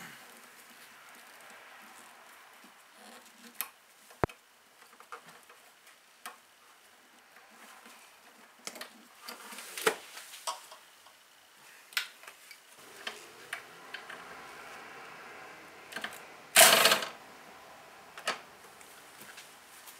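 Scattered clicks and plastic rattles as electrical connectors are unplugged by hand, then a cordless power tool with a socket extension runs briefly on a nut near the end, the loudest sound in the stretch.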